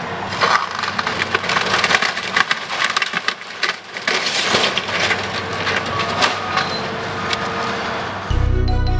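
Wooden building debris cracking and splintering as a Caterpillar 330C excavator's bucket crushes into the wreckage: a dense run of sharp snaps and crunches. Music comes in near the end.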